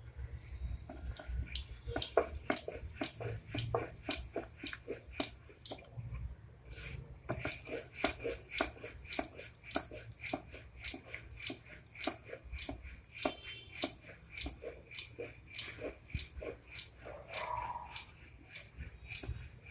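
Wooden rolling pin rolling out flour dough on a round wooden board, clacking against the board in a steady run of clacks, about two or three a second.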